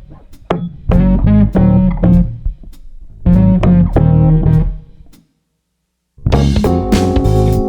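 Background music led by plucked guitar over a heavy bass line. It drops out to silence for about a second near the end, then comes back fuller, with held chords and drums.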